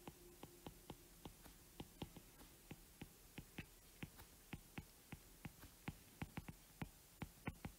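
Faint, irregular ticking of a stylus tip tapping on a tablet's glass screen while handwriting, about three to four light clicks a second.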